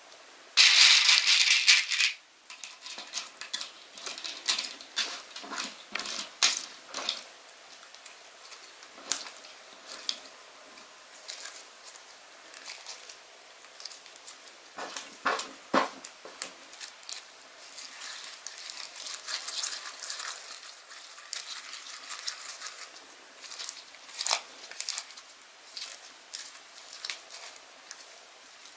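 Slime being handled at close range, making a long run of small, irregular sticky clicks and pops. It opens with a loud, noisy rustling burst lasting about a second and a half.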